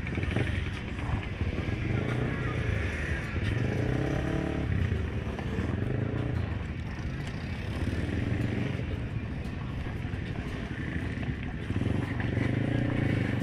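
ATV engine running, its revs rising and falling repeatedly as the machine is ridden along the trail.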